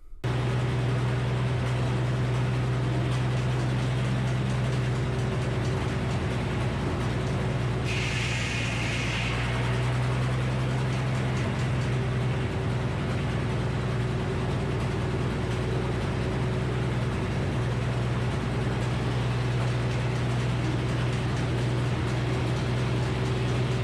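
Frick circular sawmill running with a steady low mechanical hum, with a brief higher whine about eight seconds in.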